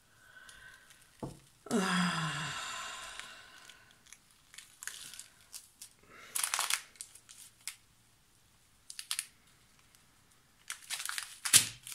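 Small plastic zip-lock bags of glass seed beads crinkling and rustling as they are picked up and handled, in short separate bursts. About two seconds in comes a longer, louder rustle that fades over a couple of seconds.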